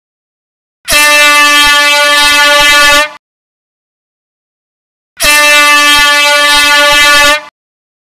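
Air horn sounding two long, loud blasts of a little over two seconds each, about four seconds apart, each at a steady pitch and starting and stopping abruptly.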